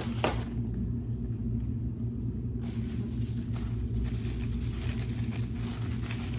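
Steady low mechanical hum, with two sharp clicks near the start.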